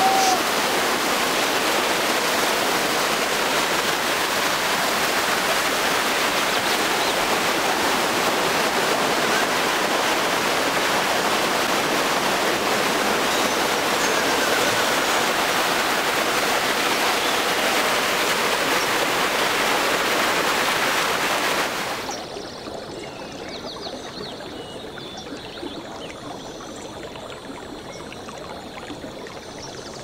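Rushing water of a small waterfall cascading over rocks, a steady full hiss. About three-quarters of the way through it drops suddenly to a quieter, duller rush.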